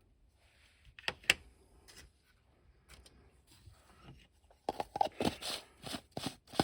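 Small hard plastic clicks and taps from a 1980s G.I. Joe action figure being handled and set down: two sharp clicks about a second in, then a quick flurry of taps and clicks near the end.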